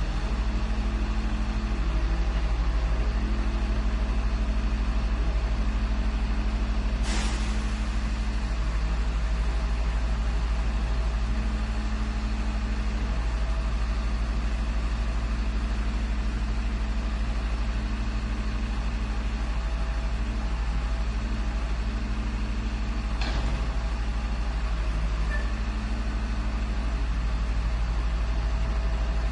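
Garbage truck engine idling steadily, with two short, sharp noises about sixteen seconds apart.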